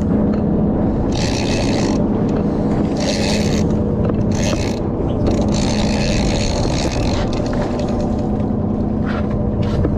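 Boat engine running steadily with a low hum, overlaid by short hissy bursts every second or two.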